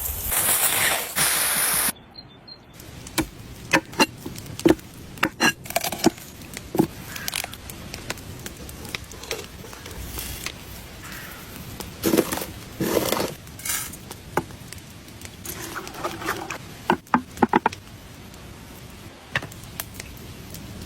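Scattered clinks, taps and scrapes of metal cookware and utensils. A loud, steady rushing noise cuts off abruptly about two seconds in.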